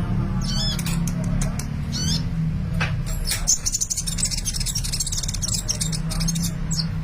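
Sunbird singing: quick, high, twisting chirps, then a fast high twittering run from about three and a half seconds in, over a steady low hum.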